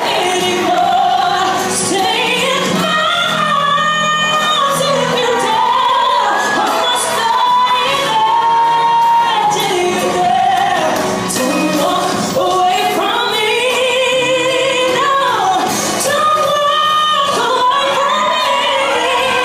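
Amplified solo singing over backing music, with long held notes that slide up and down between quicker runs.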